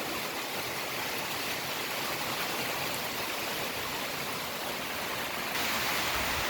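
Steady rush of rainwater runoff flowing across a flooded dirt floor during a downpour, growing a little louder near the end.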